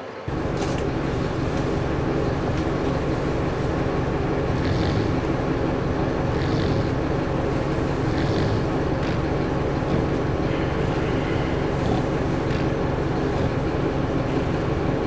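Steady running noise of a moving vehicle, coming in abruptly just after the start and holding even throughout.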